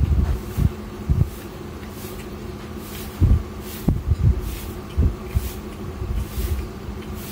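A person chewing a fried snack close to the microphone while picking at food in a plastic bowl with the fingers: scattered soft low thumps over a steady low hum.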